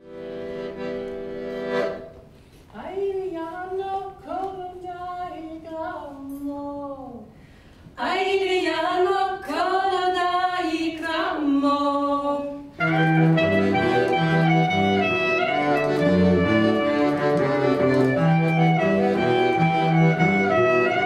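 Small Southeast European folk ensemble of voices, clarinet, accordion and cello playing. A held chord opens, a lone melody line with sliding pitches follows in two phrases, and about 13 seconds in the full group joins with a steady rhythmic bass accompaniment.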